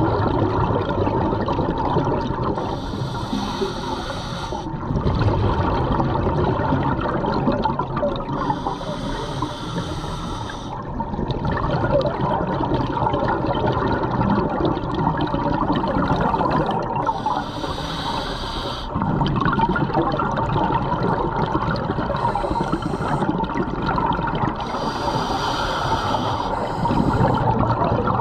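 Scuba diver breathing underwater through a regulator: the hiss of an inhalation comes about five times, each between long gurgling rumbles of exhaled bubbles.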